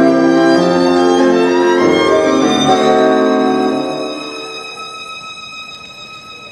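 Waltz music with a full accompaniment. About four seconds in, the lower parts drop away and the music turns much quieter, thinning to a few high held notes.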